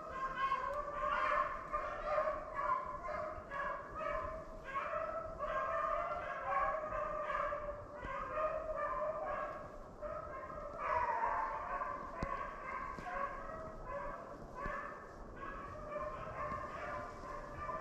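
A pack of beagles baying together, several voices overlapping without a break, with one longer howl falling in pitch about eleven seconds in. This is hounds giving tongue as they run a rabbit's scent trail.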